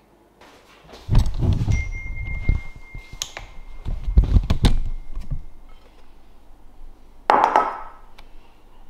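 Kitchen handling sounds: heavy thuds and clinks of dishes and containers being moved about, with a thin steady high tone for a few seconds in the middle and a short clatter near the end.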